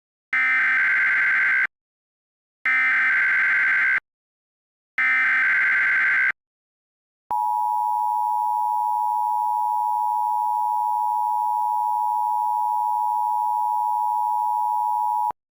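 Emergency Alert System activation: three short bursts of the SAME digital header data screech, then the steady EAS attention tone held for about eight seconds before it cuts off.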